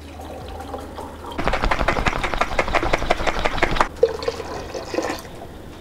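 Hot water poured from a kettle into a glass honey jar, splashing for about two seconds to rinse out the honey. A few seconds in, the honey-water is tipped from the jar into a stainless steel pot.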